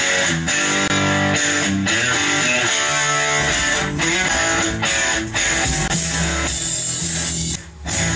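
Music led by electric guitar, with a short break a little before the end.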